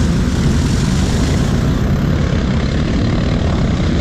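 ATV engine running steadily, a dense low rumble that keeps an even level throughout.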